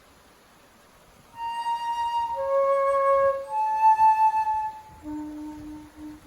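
Background music: a slow flute melody of a few long held notes, starting about a second and a half in and settling on a lower note near the end.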